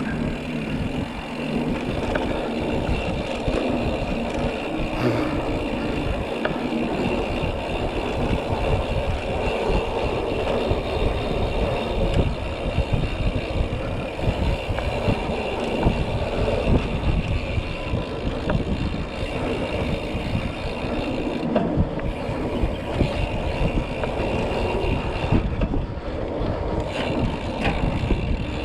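Mountain bike being ridden along a dirt trail: continuous rumble of tyres over the ground, rattle over bumps and wind on the microphone.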